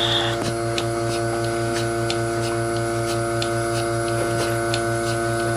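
Surge bucket milker running while milking a cow: a steady machine hum from the vacuum pump, with faint, evenly spaced clicks of the pulsator.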